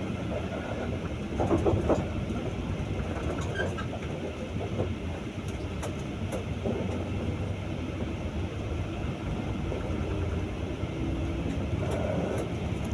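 Interior noise of a bus on the move: the engine's steady low drone with road noise and rattling from the body, briefly louder about one and a half seconds in.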